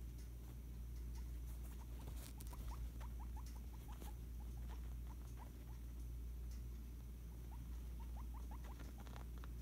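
Guinea pig giving short, slightly rising squeaks in quick runs of several a second, two runs with a pause between, over a steady low hum.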